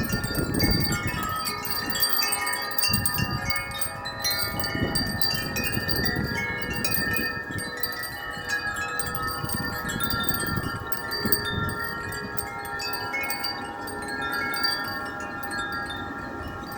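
Many wind chimes ringing continuously and overlapping, tossed by strong gusting wind, with the gusts rumbling in uneven surges on the microphone, strongest near the start.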